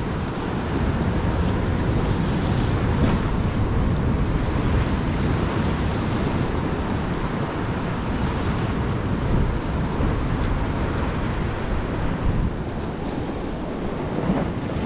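Ocean swell washing and surging around a rock ledge, with wind buffeting the microphone.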